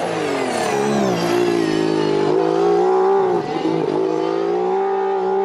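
McLaren-Honda Formula 1 car's 1.6-litre turbocharged V6 hybrid engine running on track. Its note falls over the first second or so, holds fairly steady, dips briefly a little past the middle, then holds level again.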